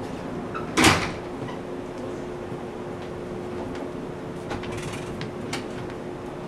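Steady hum with a constant tone inside a JR West 475 series electric multiple unit car. A loud thump comes about a second in, and a few faint clicks follow later.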